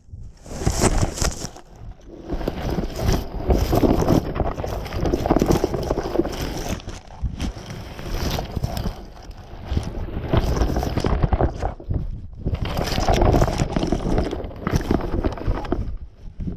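Loud, irregular rumbling and rustling on the GoPro Fusion 360 camera's microphones, coming in gusts with brief lulls, from wind or jostling of the landed balloon payload.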